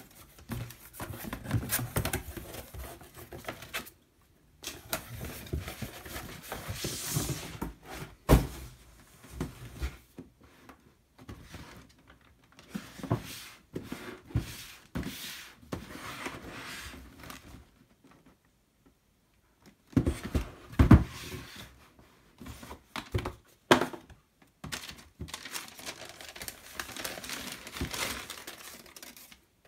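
Cardboard boxes being handled and opened by hand: flaps and lids scraping and knocking, with tissue paper crinkling and rustling. A few sharp knocks and two short silences break it up.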